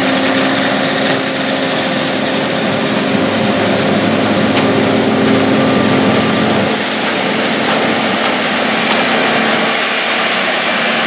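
John Deere 8245R tractor and a self-propelled forage harvester running together while chopping corn silage into a forage wagon: a steady, loud engine drone with a steady hum and a high machinery hiss over it.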